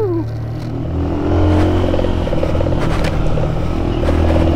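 Aveta RangerMax Explorer 130 cub motorcycle's small 130 cc engine running steadily under load in second gear on a rough gravel track, a little louder about a second in. The bike rattles over the stones, with a couple of sharp knocks around three seconds in.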